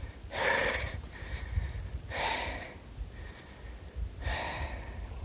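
A winded person breathing heavily after exertion: three deep, loud breaths about two seconds apart.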